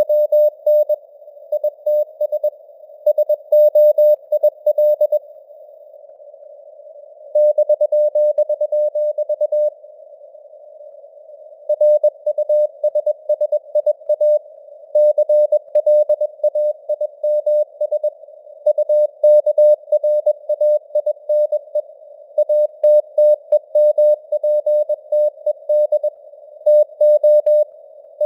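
Morse code at 21 words per minute: a single mid-pitched tone keyed in dots and dashes over a hiss of simulated radio noise, its strength fading up and down (QSB). The code stops for about two seconds twice, about five and ten seconds in.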